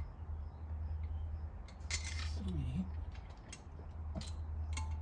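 Scattered light metal clicks and clinks of bolts and parts being handled during engine assembly, over a steady low hum.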